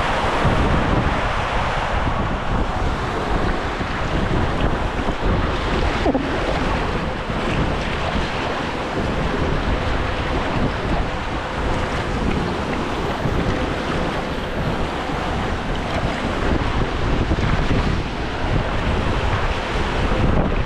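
Water rushing along a raft slide, with wind buffeting the microphone in a steady loud rumble.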